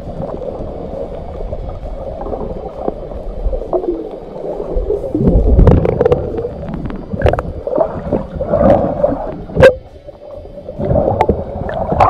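Muffled underwater sound picked up by a camera below the surface: a low churning water noise with bubbling and scattered sharp clicks, the sharpest a single knock a little past halfway. Near the end it turns to splashing as the camera breaks the surface.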